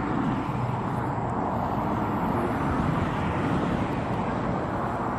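Road traffic noise: a steady rush of tyres and engines that swells a little midway through.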